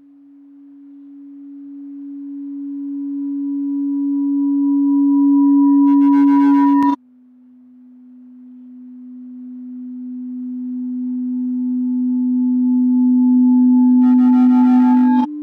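Sustained electronic tone, a pure low hum, swelling slowly louder for about seven seconds, then cutting off with a click to a slightly lower tone that swells the same way. A fainter higher tone and a brief buzzy texture join each swell near its peak, and a new tone begins near the end.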